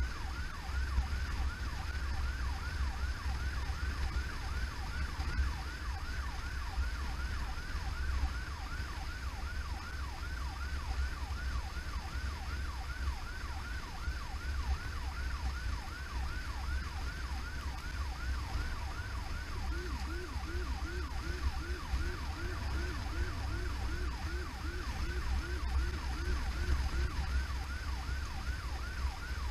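Electronic emergency-vehicle siren on a fast yelp, quick rising sweeps several times a second, over the low rumble of the moving vehicle, heard from inside an ambulance. From about twenty seconds in until about twenty-seven seconds, a second, lower-pitched yelp joins it.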